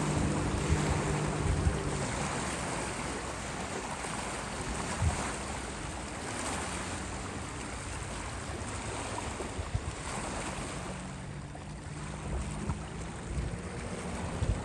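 A distant jet ski's engine humming as it speeds across open water. The hum fades out after the first couple of seconds and comes back near the end, over a steady wash of wind and water.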